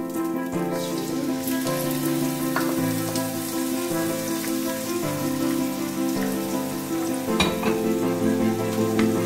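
Background music with steady chords, over shrimp and garlic sizzling in oil in a frying pan. The sizzle grows brighter about a second and a half in as the shrimp go into the pan, with a few short clicks of the wooden spatula.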